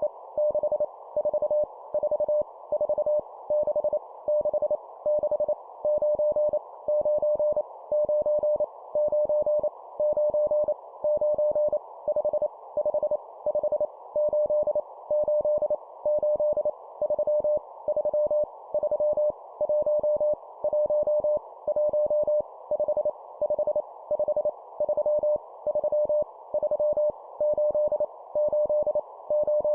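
Morse code (CW) practice audio at 25 words per minute: a single steady mid-pitched tone keyed on and off in dots and dashes, over a faint steady hiss. It sends random numbers, each repeated three times.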